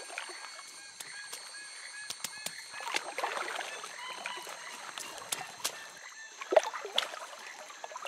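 Water splashing and dripping as a crab-eating raccoon wades and paddles its paws in a shallow stream, with a couple of sharper splashes about six and a half and seven seconds in. Behind it is a steady high insect buzz and short repeated chirping calls.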